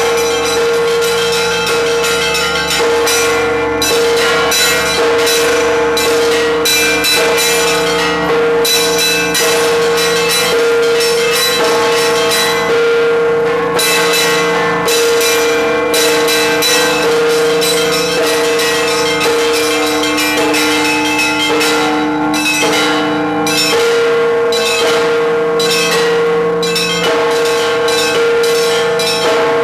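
Russian Orthodox church bells rung by a bell ringer in a peal: quick repeated strikes of the small high bells over the held ringing tones of larger bells.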